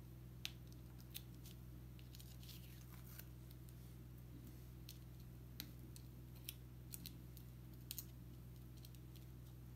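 Faint, scattered small clicks and a brief crinkle as the protective backing paper is picked up and peeled off an adhesive sand-painting board. A steady low hum runs underneath.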